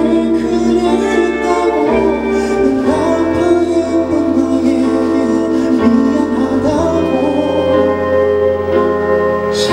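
Male vocalist singing a slow ballad live into a microphone, holding long notes with a slight waver, over soft instrumental accompaniment with a low bass line.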